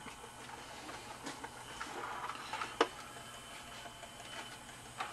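Small motor and plastic gear train of a Department 56 animated ski slope running, with a faint steady hum and light ticking. Plastic handling noise, with one sharp click a little under three seconds in, as the unit is picked up.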